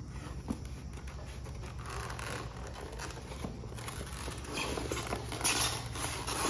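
Cardboard box and its paper packing rustling and scraping as contents are handled and lifted out by hand, getting louder near the end, over a low steady hum.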